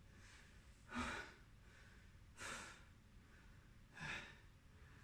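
A man breathing hard, winded from exercise, with three heavy breaths about a second and a half apart.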